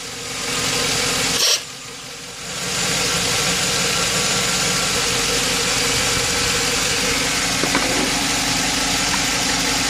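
2009 Chevy truck V8 idling rough with a misfire on cylinder 2 (code P0302), which the mechanic puts down to a bad lifter or camshaft lobe. The sound drops in level briefly about a second and a half in, then runs steadily again.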